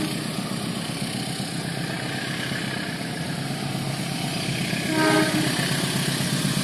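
Approaching diesel train with a steady low engine drone, slowly growing louder, and a short horn toot about five seconds in.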